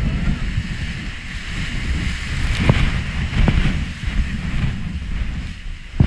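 Sea surf surging and churning as white water through a narrow rocky gully, with heavy wind buffeting on the microphone.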